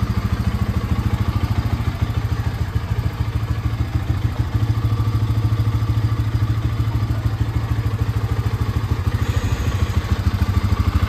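Bajaj Pulsar NS200's single-cylinder engine idling steadily, with an even, fast low beat.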